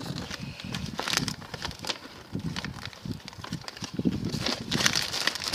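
Clear plastic bags of toy building-brick pieces being handled, crinkling and rustling, with irregular clicks and dull bumps.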